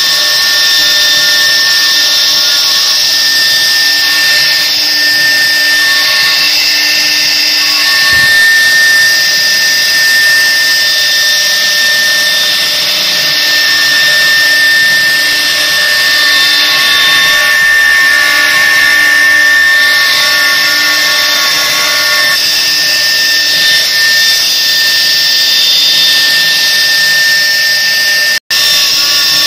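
CNC router spindle running at high speed while its small bit engraves grooves into a wooden board: a steady whine of several held tones over the hiss of cutting, some tones dropping out and coming back as the cut changes. The sound breaks off for an instant near the end.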